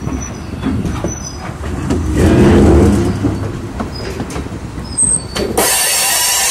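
Covered hopper freight car rolling past on the rails, with a low rumble and scattered clicks from the wheels over the track. From about five and a half seconds in, a steady, louder high screech sets in: steel wheels squealing against the rail.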